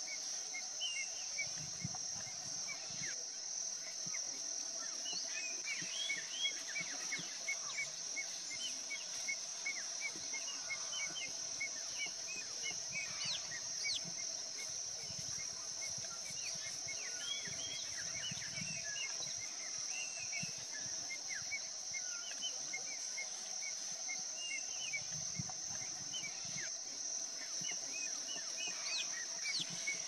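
Outdoor grassland ambience: a steady high-pitched insect drone, with many short bird chirps repeating a few times a second and a few rising whistles over it. Low rumbles come and go.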